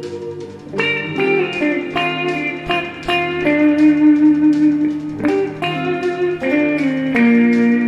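Slow guitar music: single plucked notes ringing out one after another, some sliding in pitch, over a steady low note.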